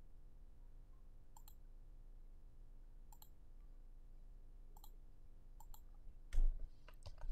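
Quiet computer mouse clicks every second or so, several as quick press-and-release pairs, then louder keyboard key presses from about six seconds in.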